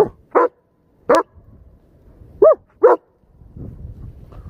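German Shepherd dog barking at close range: about five short, sharp barks, the last two close together about two and a half seconds in.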